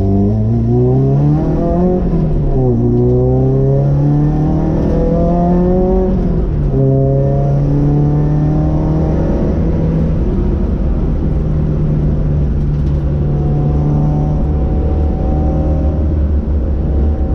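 Renault Clio 182's naturally aspirated 2.0-litre four-cylinder, heard from inside the cabin, accelerating hard through the gears. The pitch climbs and drops back at each upshift, about two and six and a half seconds in, then holds nearly steady at speed.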